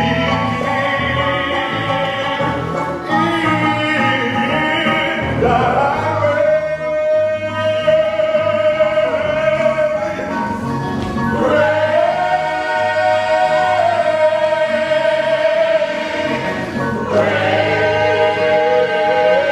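Musical-theatre chorus singing with accompaniment, holding long sustained chords that change about every five or six seconds over a steady bass line.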